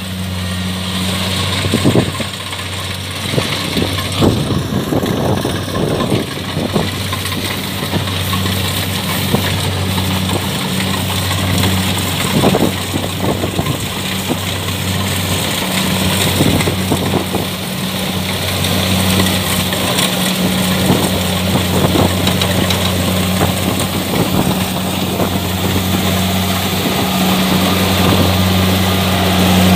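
Kubota DC-70 combine harvester running steadily, its diesel engine giving a constant low hum, with frequent irregular rattles and knocks from the machine throughout.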